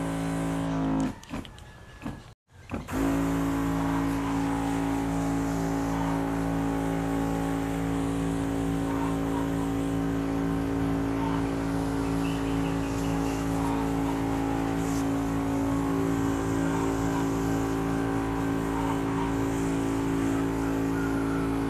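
Electric sprayer's pump motor running with a steady hum as fertiliser solution is sprayed as a mist over potted orchids. The hum drops out briefly about a second in, then comes back and runs on evenly.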